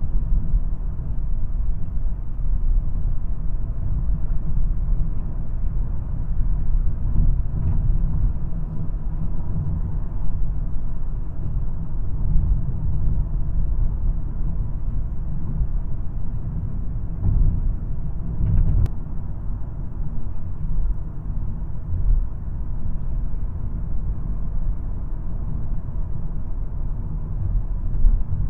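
VW Golf R's turbocharged 2.0-litre four-cylinder engine and tyres while driving on the road: a steady low rumble, with one brief click about nineteen seconds in.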